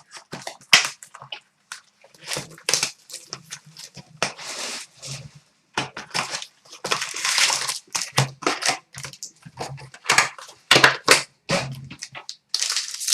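Card-pack packaging being torn open: plastic wrapper crinkling and ripping in irregular crackly bursts, with longer tears about four and seven seconds in.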